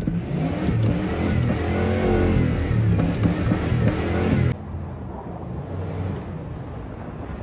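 Ford 351 V8 engine revving up and down several times, then, about four and a half seconds in, dropping suddenly to a steadier, quieter run.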